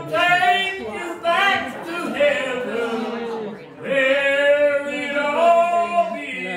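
Church congregation singing a hymn together, men's and women's voices with no instrument standing out, holding long notes.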